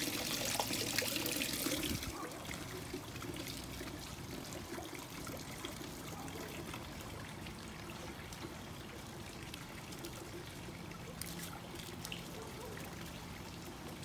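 Water trickling and splashing from a garden fountain into a small pond, loud for about the first two seconds, then fainter and steady.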